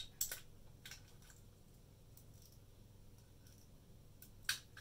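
A few short, sharp clicks and snaps from hands working the wire leads and test clips on a small DC brush motor: a couple near the start, one about a second in and a louder one near the end. Under them is a faint, steady low hum.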